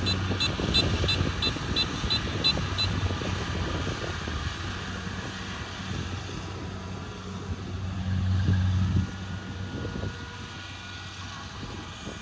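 Kubota rice combine harvester's diesel engine running steadily, swelling louder for about a second near 8 seconds before dropping back quieter. Over the engine, a rapid high electronic beeping, about three to four beeps a second, sounds for the first three seconds and then stops.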